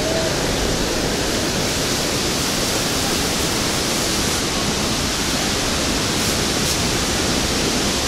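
Steady, even rush of heavy falling water from the Marmore Falls, the Cascata delle Marmore.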